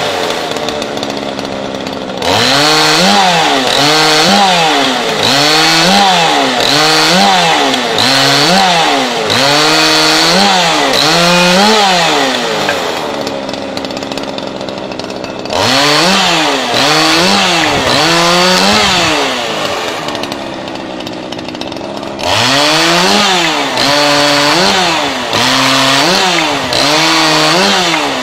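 Husqvarna two-stroke chainsaw, held fixed in a bench stand, cutting branches pushed into its chain. The engine pitch swells and falls about once a second with each cut, and twice settles for a few seconds into quieter, lower running between batches of cuts.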